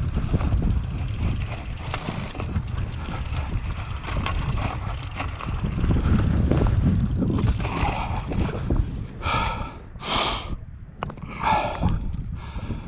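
Mountain bike rolling fast down a rocky dirt trail: a steady rumble of tyres over dirt and stones, with rattling from the bike and wind on the microphone. Three or four short, loud rasping sounds come close together near the end.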